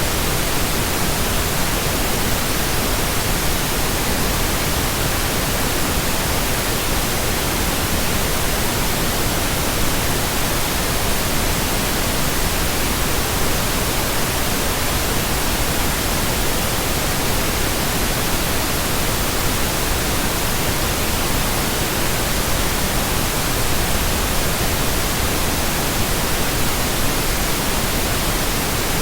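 Steady, unchanging pink noise: an even, full-range hiss with no tones or breaks.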